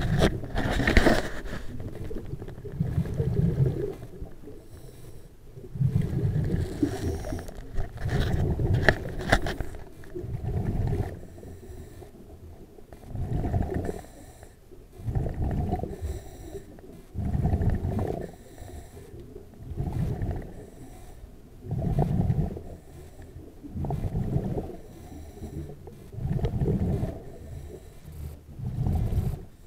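A diver's breathing underwater: exhaled air bubbling out in a low rumbling burst about every two seconds. Some scraping and knocking is mixed in during the first third.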